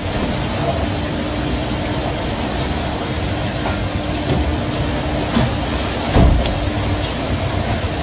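Rough sea rushing and churning along the side of a moving boat over a steady engine hum, with two heavy thuds about five and six seconds in.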